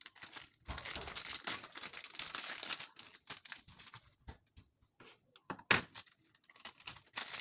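Irregular rustling and crinkling handling noise, with one sharp click about five and a half seconds in.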